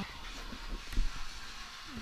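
Faint handling noises from a plastic toy school building and a sticker being put on it, with one dull knock about a second in.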